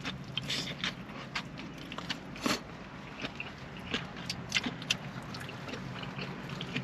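Close-up eating sounds: chewing, with scattered small clicks and crinkles of burger wrapper paper, over a steady low hum.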